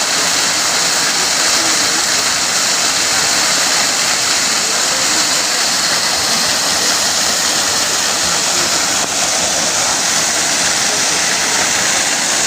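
Fast-flowing mountain river rushing steadily, a dense, unbroken hiss of moving water.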